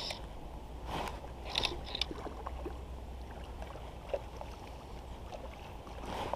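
Steady low rumble of wind on the microphone, with a few short clicks and rustles from the fly rod, reel and line being handled.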